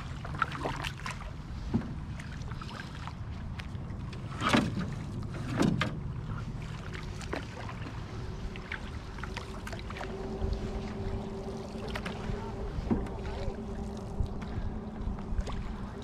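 Canoe being paddled on calm water: paddle strokes, splashes and drips with scattered light knocks, over a steady low rush of wind on the microphone. A couple of louder strokes stand out about four and a half and six seconds in.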